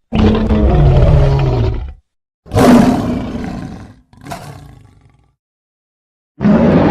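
Bigfoot roar sound effect: four deep, rough roars cut apart by dead silence. The first lasts about two seconds. The second is followed straight away by a shorter, fading one, and the last begins near the end.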